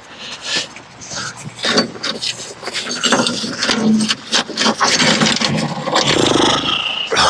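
An engine running under a series of sharp metal clanks, knocks and scrapes.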